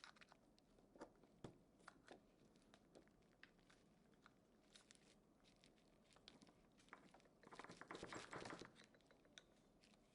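Near silence with faint scattered clicks and handling noises, and a brief rustling, scraping stretch about three quarters of the way through.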